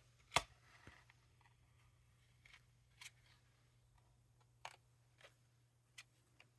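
Faint, scattered clicks and taps of a folded cardstock card being handled, with one sharper click about half a second in.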